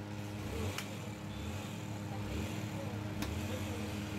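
Meat cleaver chopping into beef on a wooden block: two sharp chops, about two and a half seconds apart, over a steady engine-like hum.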